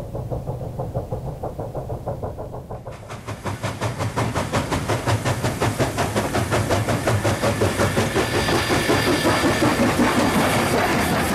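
Chinese JS-class steam locomotive working a loaded coal train: fast, even exhaust chuffs with the clank of its running gear. Distant and muffled at first, it turns abruptly close and louder about three seconds in, and keeps building as the engine passes.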